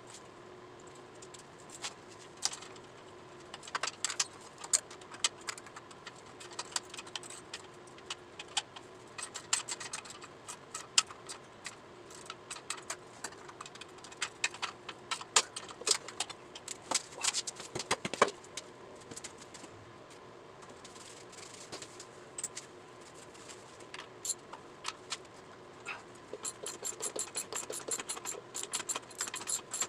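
Metal hand tools and motorcycle parts clinking and rattling in irregular light knocks, then, about three seconds before the end, a ratchet wrench clicking quickly and evenly.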